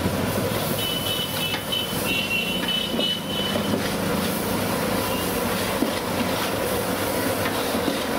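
A long metal stirrer scraping and churning thick masala in a large aluminium pot, over a steady background rumble. From about a second in, a thin high squeal runs for a few seconds.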